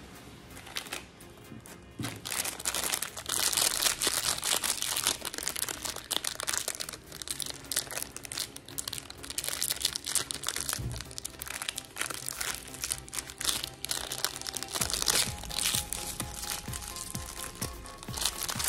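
Plastic snack wrappers crinkling and tearing as packets are opened by hand, starting about two seconds in, over background music.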